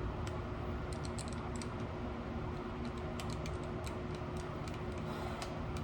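Scattered light clicks and taps at an irregular pace, over a steady low hum.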